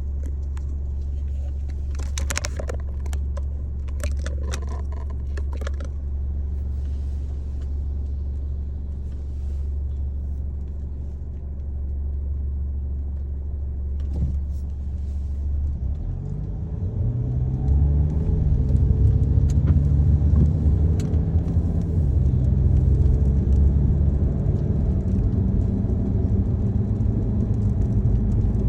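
Car engine and road noise heard from inside the cabin, with a few sharp clicks in the first several seconds. About halfway through, the car pulls away: the engine note rises in steps and gets louder, then holds at speed.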